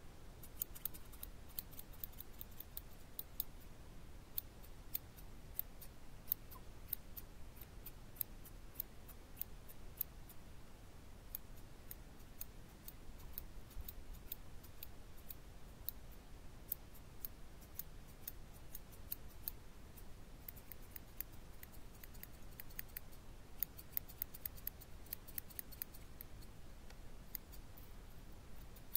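Scissors snipping hair: short, crisp snips coming in quick irregular runs with brief pauses between, the densest run near the end.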